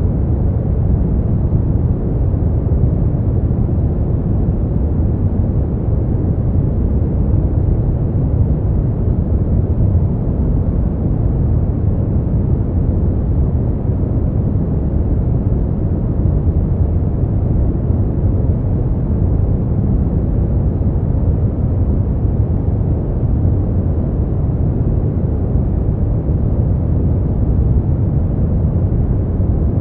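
Steady brown noise: a deep, even rushing hiss with most of its energy low down and little above the upper mids.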